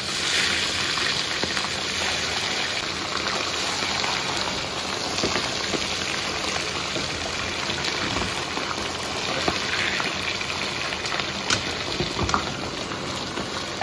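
Whole crucian carp frying in hot oil rendered from pork fat in a flat-bottomed wok, as the fish are laid in one after another. The oil keeps up a steady sizzle with scattered pops.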